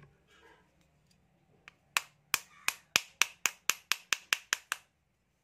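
A small hammer tapping steel E and I laminations into a small transformer's core: about a dozen quick, evenly spaced strikes, about four a second, starting about two seconds in and stopping shortly before the end.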